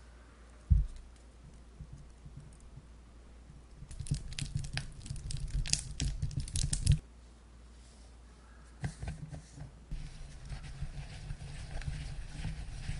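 A glass mixing bowl set down with a single knock about a second in. Then a wire hand whisk beats softened butter in the bowl, its wires clicking and scraping against the glass in quick strokes. After a short lull, the whisking starts again as powdered sugar is worked into the butter for buttercream.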